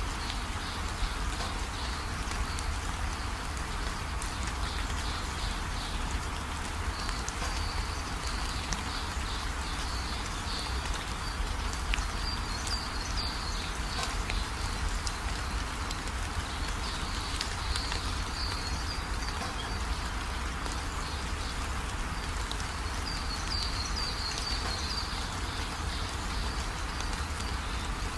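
Steady background hiss over a low rumble, with faint high-pitched chirping trills that come and go throughout.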